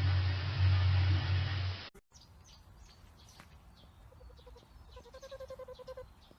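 A loud low hum that cuts off abruptly about two seconds in, followed by faint bird chirping with a longer held pitched call near the middle.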